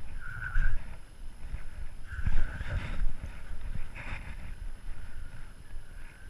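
A German Shorthaired Pointer running with a GoPro on its chest harness: irregular muffled thuds of its paws and body against the camera, with the dog's breathing and wind on the microphone. The heaviest thumps come about two to three seconds in.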